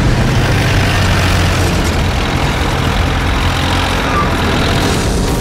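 Steady engine drone with a rushing noise behind it, from an open jeep driving fast and a light propeller plane flying low over it.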